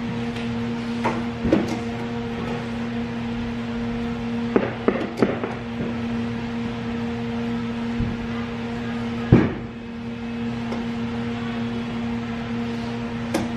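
Steady electrical hum, a low pitch with a higher overtone, over scattered clicks and knocks, the loudest a sharp knock a little past the middle, after which the hum briefly drops.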